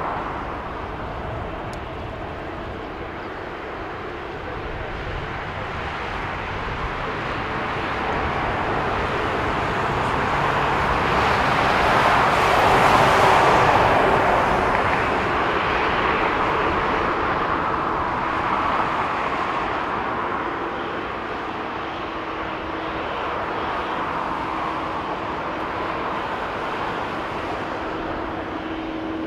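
Boeing 737-800 converted freighter's CFM56-7B jet engines at taxi power, a steady rushing hum. It swells to its loudest about halfway through, then eases off, with a faint steady whine in the last few seconds.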